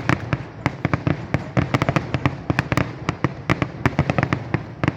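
Fireworks display going off in a rapid, uneven barrage of bangs, several a second, with deep booms among sharper cracks.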